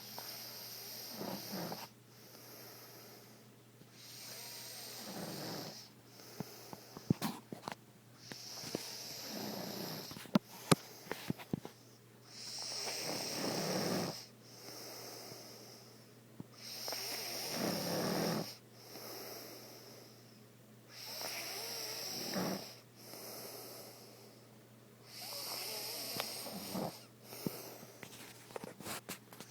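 A man snoring in his sleep, one rasping breath about every four seconds. A few sharp clicks come a third of the way in.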